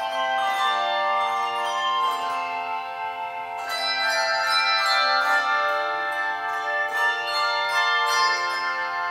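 Handbell choir playing a piece: many bells ringing together in chords, with new notes struck every second or so and each note ringing on over the next.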